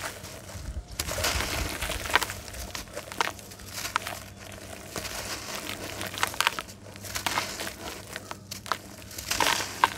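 Dry, gritty red dirt slabs crumbled by hand, crunching and crackling in irregular bursts as crumbs and powder fall into a basin of water.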